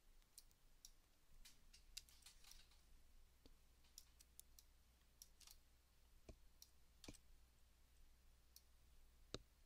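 Near silence: room tone with faint, scattered clicks of a computer mouse.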